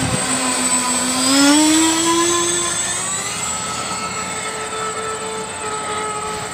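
Radio-controlled model airplane's motor running, its pitch rising in steps as the throttle is opened, then holding at a higher note.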